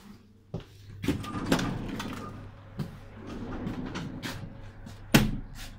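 Doors in an electric suburban train carriage being handled: rattling and clattering as a door is opened and passed through, then a single loud bang about five seconds in as a door swings shut.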